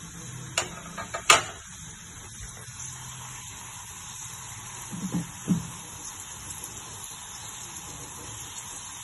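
Beef steaks sizzling in melted butter in a frying pan, a steady hiss. A few sharp clicks come in the first second and a half, and two short low knocks about five seconds in.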